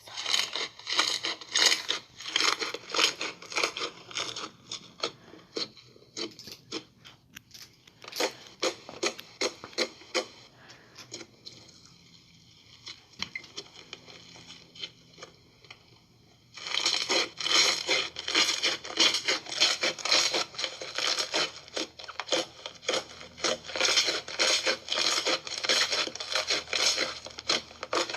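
Slime being squeezed and poked by hand, giving a dense run of crackling, popping clicks. It eases off partway through and starts up again loud about two-thirds of the way in.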